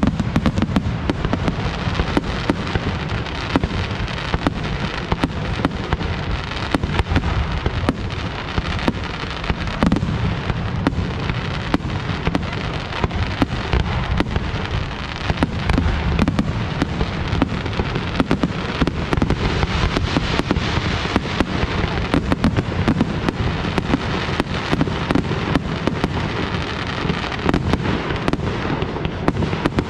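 Fireworks display: aerial shells launching and bursting in a rapid, unbroken run of bangs and crackling, many reports every second with no pause.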